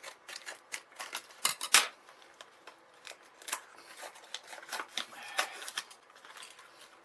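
Packaging of a new motion-sensor light switch being opened and handled: irregular sharp clicks and crackles, the loudest pair about one and a half seconds in.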